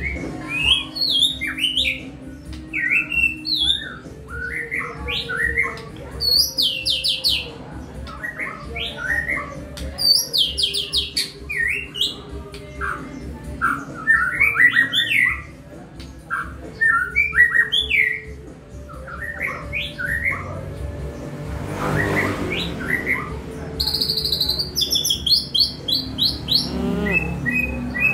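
White-rumped shama (murai batu) singing a long, varied song of quick whistled phrases, slurred notes and rapid trills, with short pauses between phrases.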